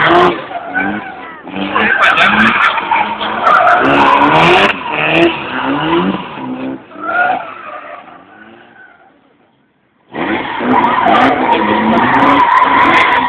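A drift car's engine revs hard, rising and falling, with its tyres squealing as it slides. About eight seconds in the sound fades almost away, then comes back suddenly at full level about two seconds later.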